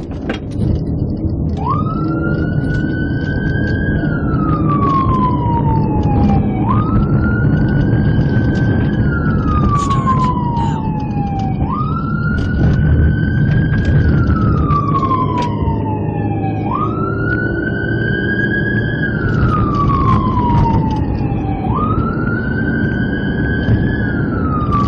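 Police car siren on a wail, sweeping up quickly and falling slowly about every five seconds, with the car's engine and road noise underneath as it drives.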